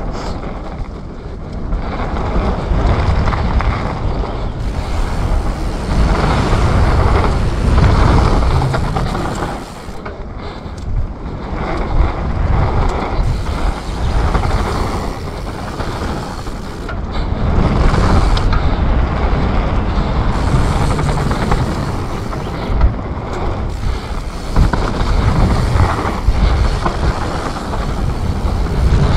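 Commencal Supreme DH29 downhill mountain bike ridden fast down a dirt trail: wind rushing over the microphone, tyres rolling on dirt, and the chain and suspension rattling. The noise swells and fades every few seconds, with a couple of sharp knocks from bumps.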